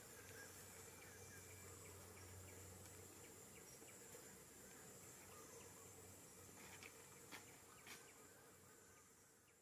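Near silence: faint field ambience with a steady high-pitched insect drone, a couple of faint clicks near the end, fading out at the close.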